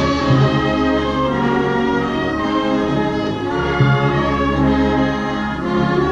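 Community concert band playing sustained, full chords that shift every second or so.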